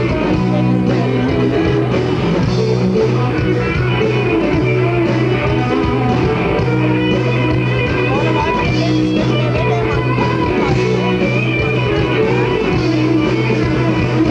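Live rock band playing loud amplified electric guitars and bass guitar, with steady sustained bass notes under the guitar parts.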